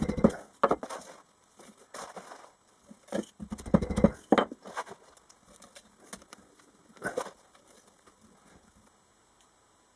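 Moulding sand being rammed into a tin-can mould with a wooden dowel: irregular scrapes and dull thumps, the heaviest around four seconds in, and a last scrape about seven seconds in.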